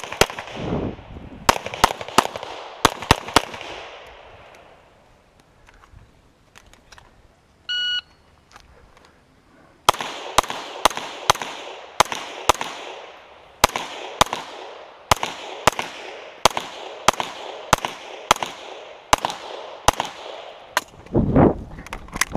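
Rapid strings of gunshots at a practical shooting match, with one short electronic shot-timer beep about eight seconds in, followed by a long string of shots fired in quick bursts.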